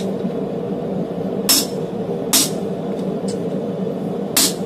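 Hammer blows on a guillotine forging tool with hollow bevel dies, pressing red-hot D2 steel into a straight-razor bevel: three sharp metallic strikes, each with a short ring, at uneven intervals over a steady machine hum.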